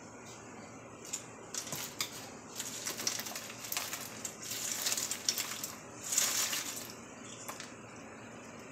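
Crawfish poured from a metal colander into a pot of boiling water: the shells rattle and clatter against the metal and drop into the water, over the steady bubbling of the boil. The clattering starts about a second in and dies away around seven seconds.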